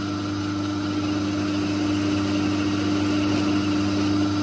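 Myford lathe running, its electric motor and spindle giving a steady hum, while the tool takes a cut along a bolt held in the chuck. The hum gets slightly louder about a second in.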